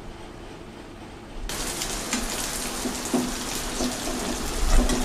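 Beaten eggs sizzling in hot oil in a frying pan, muffled at first and then louder and brighter about a second and a half in, with a spatula working the omelette over.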